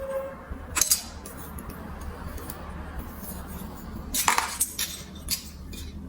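Marbles clicking and clattering along a plastic building-block marble run: a few sharp clacks, loudest about a second in and a quick cluster near the four-second mark, over a faint steady rumble.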